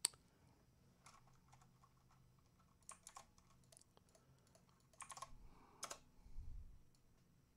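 Faint, scattered clicks and taps of a computer keyboard and mouse at a desk, with a soft low bump about six and a half seconds in.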